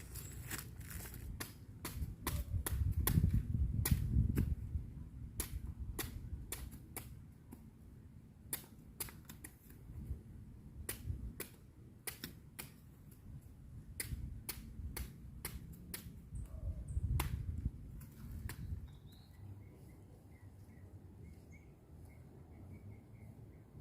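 Crop stalks being cut by hand in reaping, each stroke giving a sharp snap, about one or two a second at an uneven pace, with low rumbling bursts of handling noise. Faint bird chirps near the end.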